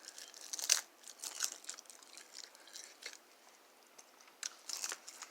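Feist dog chewing a crispy seaweed snack: irregular bursts of sharp, crisp crunching with short pauses between bites.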